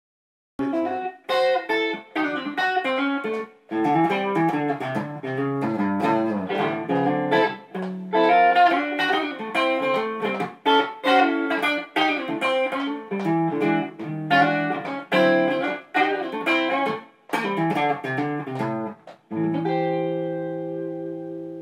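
Telecaster-style electric guitar played through an amplifier: a run of quickly picked single notes and chords, starting about half a second in and ending on a chord that is left to ring and fade.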